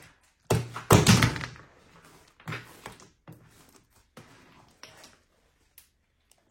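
Slime being worked into a bubble and popped: a sharp thunk about half a second in, a louder squelching burst about a second in, then a few fainter pops and taps.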